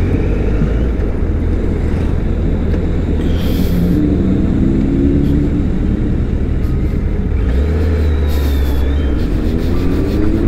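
Superbike engine running on the move, with a steady low rumble. The engine note climbs near the end as it revs up.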